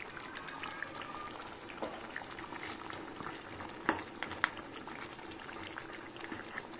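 Chicken pieces in a green marinade frying in hot oil in a nonstick kadai: a steady sizzle and bubbling with a fine crackle of small pops, and a few sharper clicks about four seconds in.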